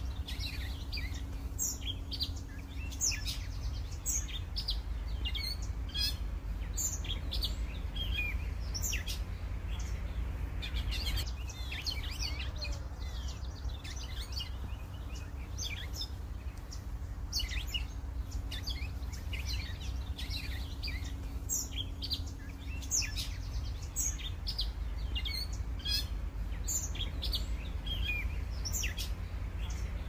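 Several songbirds singing in a dawn chorus: many short, high chirps and trills overlapping, over a steady low rumble, with a faint hum that comes and goes.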